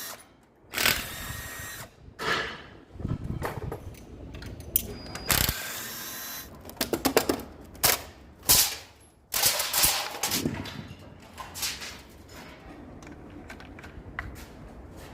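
Irregular metallic clanks, knocks and clicks of tools and engine parts being handled, with a few short rattling bursts of a power tool, during a V8 engine teardown.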